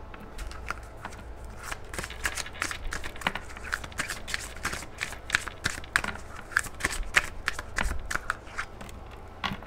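A deck of oracle cards being shuffled by hand, cards slipping and tapping against each other in quick, irregular clicks that run on for several seconds.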